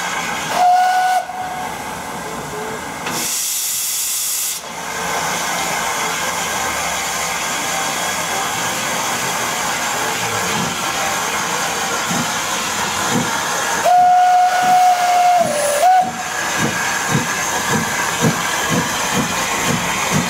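Hudswell Clarke 0-6-0T steam tank locomotive: a steady hiss of steam, a short whistle blast about half a second in and a loud rush of steam a few seconds later. About 14 s in it gives a longer whistle followed by a short pip, then exhaust beats start at about two a second as it pulls away with its freight train.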